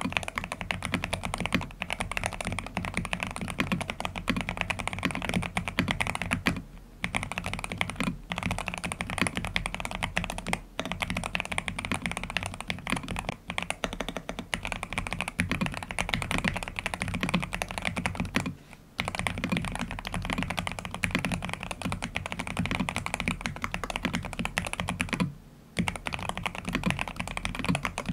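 Continuous fast typing on a Cyberboard Terminal mechanical keyboard fitted with Aqua King switches and a three-layer tape mod: a dense stream of keystrokes. There are short pauses about a quarter of the way in, about two-thirds in, and again near the end.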